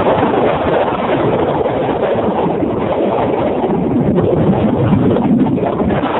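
Wind buffeting the microphone aboard a sailboat under sail, a loud, uneven rushing, with water washing past the hull beneath it.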